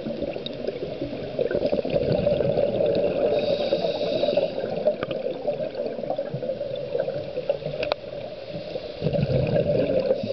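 Underwater sound from a camera held below the surface: a steady, muffled wash of water with gurgling, a few short clicks, and a stretch of high hissing about three seconds in.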